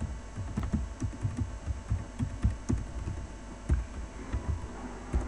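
Computer keyboard being typed on, heard as an irregular run of dull key thumps, several a second, with a louder thump near the end, over a steady electrical hum.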